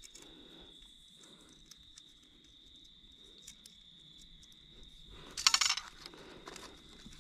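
Insects chirring steadily at a high pitch, with small clicks and taps as an arrow and compound bow are handled on dry leaf litter, then a brief loud rustle about five and a half seconds in.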